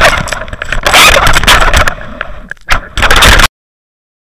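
Loud rushing water and knocks picked up by an underwater fishing camera's housing microphone as the water around it churns in a tarpon's strike on the bait. It cuts off suddenly about three and a half seconds in.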